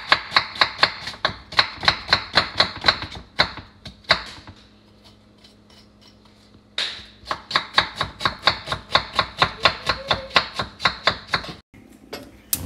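Knife chopping a red onion on a wooden cutting board: fast, even strokes at about five a second, with a quiet stretch of about two seconds in the middle before the chopping resumes. Two sharp clicks near the end.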